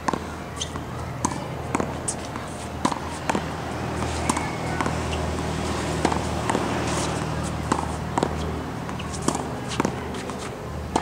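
Tennis ball struck with a racket and bouncing off a practice wall and the hard court: sharp, irregular pops about one or two a second, over a steady low hum.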